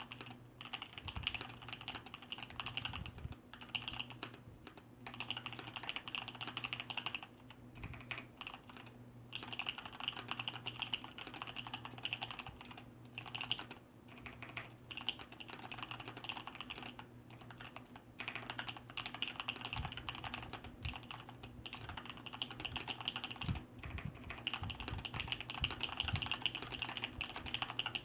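Fast, continuous typing on a Thermaltake Poseidon Z RGB mechanical keyboard with Kailh brown tactile switches, lubed at the sliders and stabilizers and sound-dampened inside the case. The keystrokes come in long rapid runs broken by brief pauses, with occasional heavier thocks, most likely from the stabilized keys such as the space bar.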